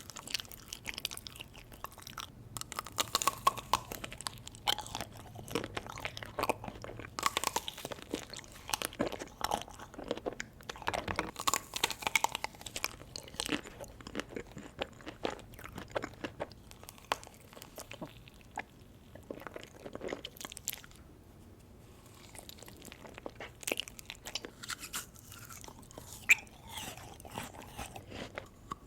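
Close-miked mouth sounds of eating ice cream: bites, crunching and chewing, with many irregular sharp clicks and wet smacks. The sounds thin out for a few seconds past the middle, then pick up again.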